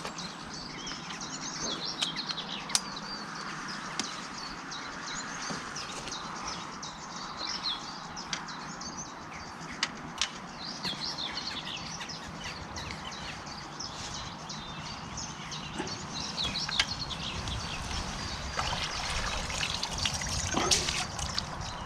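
Small birds chirping and singing throughout, over water splashing and trickling as the hooked tench is drawn in and netted, with a few sharp clicks and knocks.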